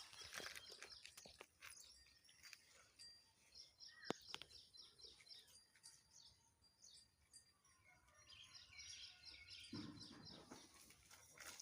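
Small birds chirping faintly in quick repeated runs of short, high notes, with a few scattered clicks and a sharper tick about four seconds in.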